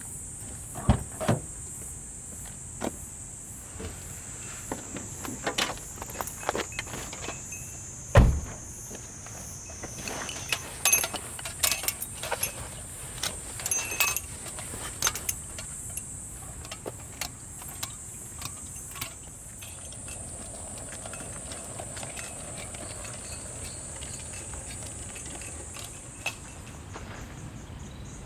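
Scattered clicks, clinks and knocks of gear being handled, the loudest a dull thump about eight seconds in, over a steady high-pitched drone.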